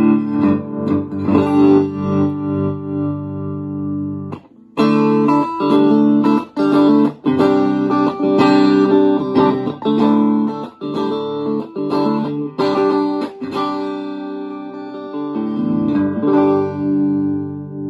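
Electric guitar played through a Davoli Jolly Krundaal valve amplifier: ringing chords, a brief break about four and a half seconds in, then repeated strummed chords.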